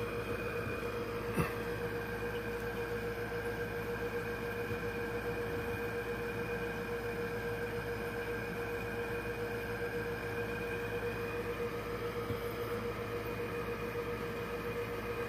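Aquarium filter running: a steady hum with a constant mid-pitched tone over a low hiss, and one faint click about a second and a half in.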